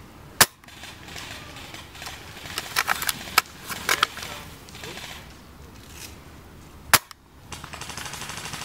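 Two sharp shots from an upgraded Tokyo Marui VSR-10, a spring-powered bolt-action airsoft sniper rifle, about six and a half seconds apart. In between comes a cluster of smaller clicks and knocks.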